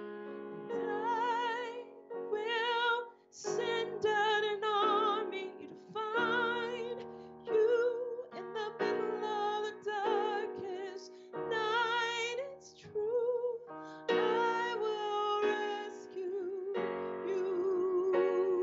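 A woman singing phrases with a marked vibrato, accompanying herself on an electric keyboard playing sustained piano chords.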